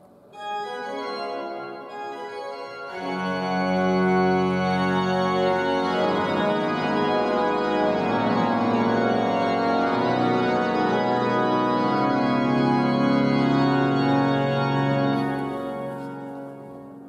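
Pipe organ music: held chords start suddenly, grow fuller and louder with deep bass notes about three seconds in, then fade away near the end.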